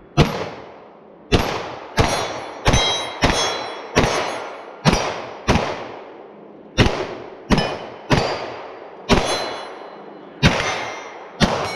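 Rifle shots fired in an uneven string, about fifteen in all, half a second to a second apart, each followed by the ringing clang of a struck steel target.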